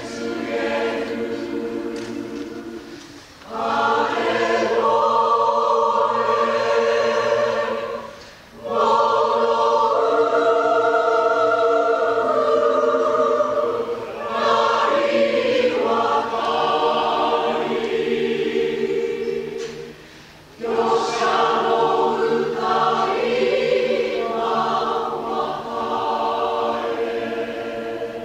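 Community choir singing a slow Russian song in long sustained phrases over a steady held low note. The singing drops away briefly between phrases, about three, eight and twenty seconds in.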